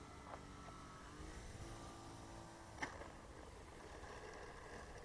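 Faint whine of an electric RC model plane's motor and propeller, a FLEX Innovations Cessna 170, its pitch rising about a second in as the throttle changes. A single sharp click sounds near the middle.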